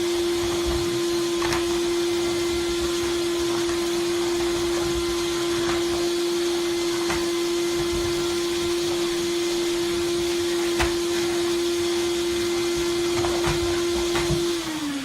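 Vacuum cleaner running with a steady hum, with a few light knocks. Near the end it is switched off and the motor's pitch falls as it winds down.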